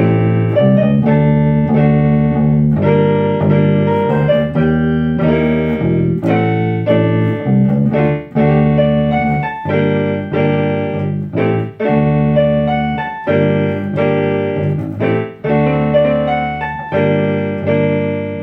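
Electronic keyboard with an electric-piano sound playing a slow jazz ballad in chords over a bass guitar line. A last chord rings out and fades near the end.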